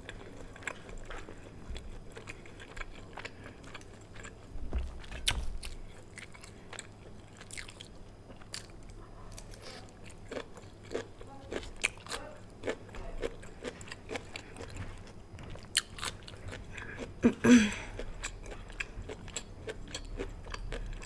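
Close-miked chewing and biting of Panda Express Chinese takeout food, with many small wet clicks and crunches. One short, louder sound comes about three-quarters of the way through.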